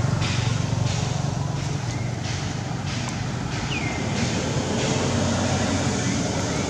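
Outdoor background: a steady low rumble, with a high hiss that comes and goes in stretches of about half a second to a second, and one short falling squeak about four seconds in.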